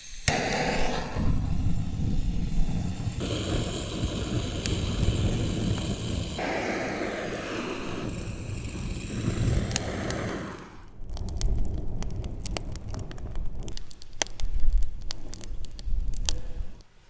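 A fire of twigs and sticks burning in a dug pit under a metal sheet: a rushing noise for the first several seconds, then many sharp crackles and snaps of the burning wood from about eleven seconds in.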